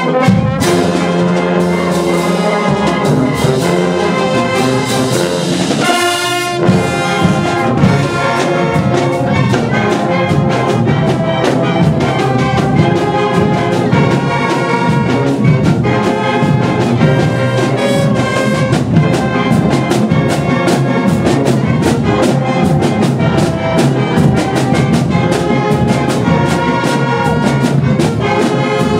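Live marching band playing loudly: a full brass section of trumpets, horns and sousaphones over a steady drum beat.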